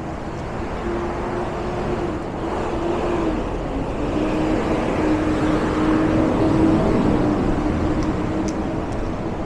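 Street traffic: a motor vehicle passing close by, its engine hum and road noise growing louder to a peak about two-thirds of the way through, then easing off.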